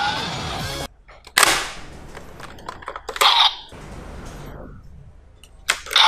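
Kamen Rider Diendriver toy gun playing its electronic gunshot sound effects through its speaker: three sharp blasts, each tailing off, about a second and a half in, around three seconds in, and near the end.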